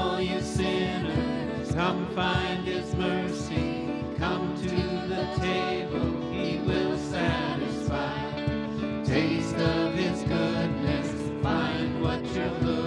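Church worship band: several singers on microphones singing together, accompanied by grand piano and acoustic guitar.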